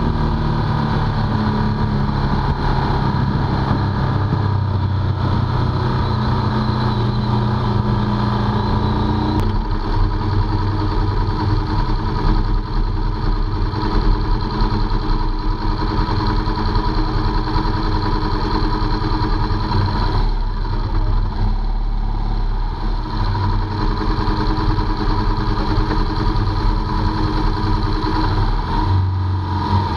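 Motorcycle engine running, heard close up from a camera mounted on the bike. About nine seconds in the sound changes abruptly to a deeper, steadier note as the bike sits idling.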